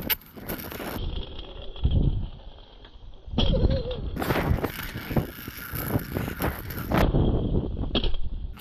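Stunt scooter wheels rolling over a concrete skatepark surface, with irregular clacks and knocks as the deck and wheels hit the ground. The sound changes abruptly several times.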